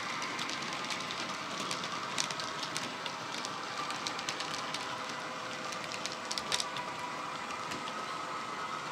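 Model railway wagons rolling past on the track, their metal wheels clicking irregularly over the rail joints. Under them is the faint steady diesel engine sound from the locomotive's DCC sound decoder and speaker.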